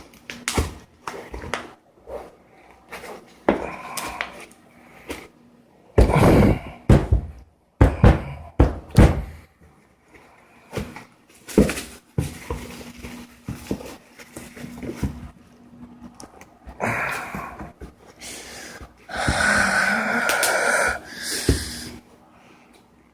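Packaging being handled and unpacked by hand: irregular knocks, clicks and rustling, with louder stretches of rustling and scraping about six seconds in and again near the end.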